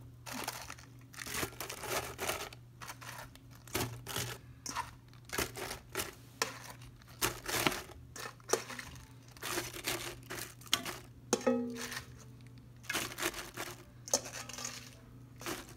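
Napa cabbage leaves rustling and crinkling as they are handled and pressed into a pot, with irregular crisp crunches of the leaves.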